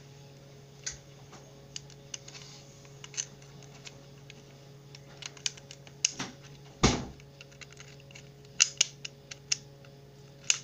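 Scattered sharp clicks and taps at an irregular pace, with one heavier thump about seven seconds in.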